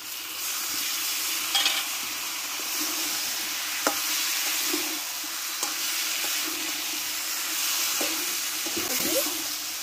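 Mixed vegetables sizzling in a metal kadai as a metal spatula stirs them through a ground mustard-and-poppy-seed paste: a steady frying hiss with the scrape of the spatula and a few sharp taps of it against the pan.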